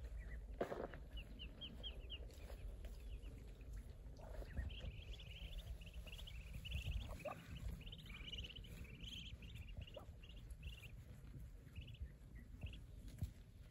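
A flock of ducklings peeping in quick runs of short, high peeps, busiest in the middle, over a low rumble.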